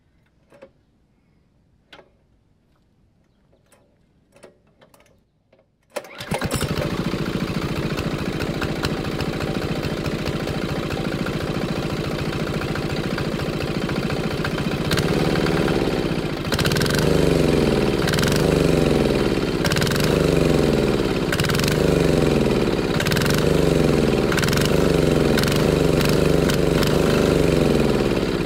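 Small 196cc single-cylinder air-cooled four-stroke diesel engine, fuelled on filtered waste motor oil, firing up about six seconds in after a few faint clicks and then running steadily. From about halfway its note wavers in a regular rise and fall roughly every second and a half.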